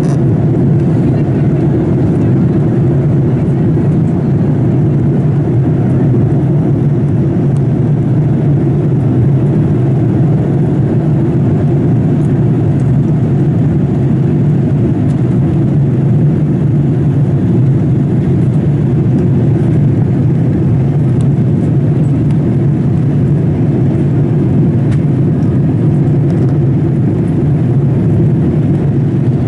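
Steady cabin noise inside a Boeing 787-8 in flight: an even, low rush of engine and airflow noise that holds constant throughout.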